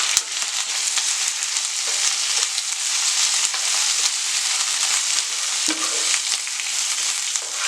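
Thoothuvalai leaves and onion sautéing in hot oil in a pan: a steady hissing sizzle, with now and then a faint click of the stirring.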